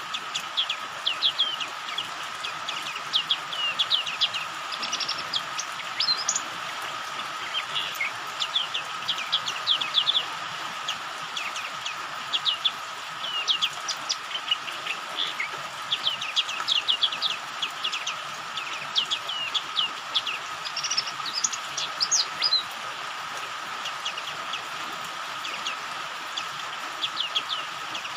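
White-eye (pleci) lure song: rapid clusters of thin, high chirps and twitters, broken by short pauses. A steady hiss of rain and a constant faint tone run underneath.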